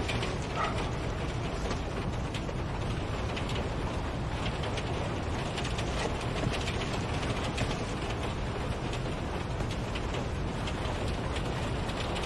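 Steady low rumbling background noise with many faint, irregular clicks and ticks.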